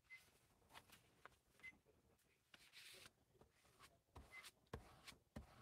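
Faint rustling and rubbing of paint-covered paper sheets being shifted and smoothed on a tabletop, followed by a few soft knocks in the last second and a half.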